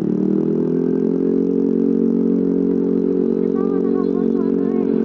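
Yamaha NMAX scooter's single-cylinder engine running through a deliberately leaking exhaust. Its pitch rises slightly in the first second, then holds steady.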